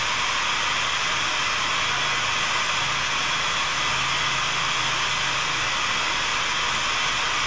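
Steady, even hiss at a constant level, with a faint low hum partway through.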